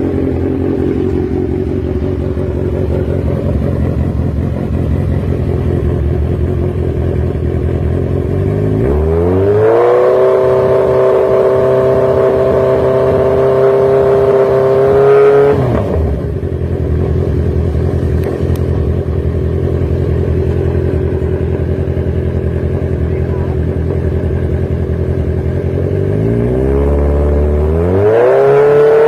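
Engine exhaust idling with a steady beat. It revs up to a held, higher pitch for several seconds, drops back to idle, then revs up again near the end.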